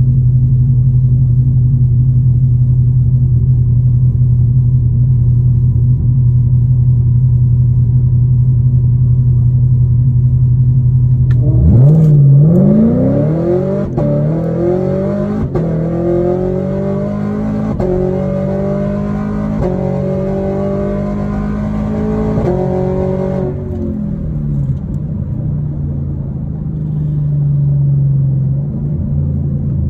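Whipple-supercharged 6.2-litre V8 of a 2019 Camaro SS, heard from inside the cabin: it idles steadily at the start line, then launches at full throttle about eleven seconds in and pulls hard through several upshifts, the pitch climbing and dropping back with each shift, for a quarter-mile pass of about eleven seconds. It then lifts off and runs on at a lower, steadier note.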